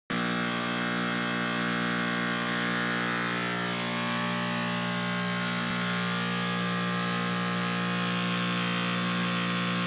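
Breadboard analog synthesizer oscillator playing through a Steiner voltage-controlled filter: a steady, buzzy held tone at one low pitch with many overtones, the upper ones shifting slightly. The amplifier is clipping slightly, giving the tone a harsher edge.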